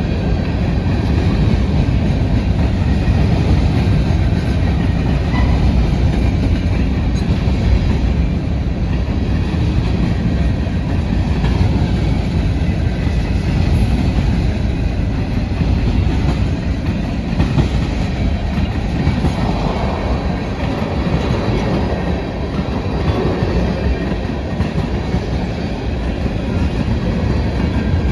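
Freight train cars rolling past close by: a steady, loud rumble with the clickety-clack of wheels over rail joints.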